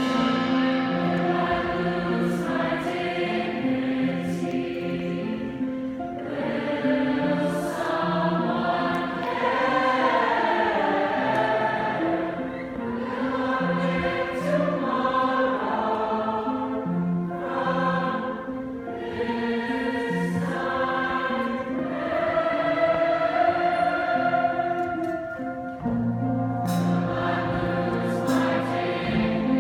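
Large choir singing in harmony, holding long notes that change chord every second or two.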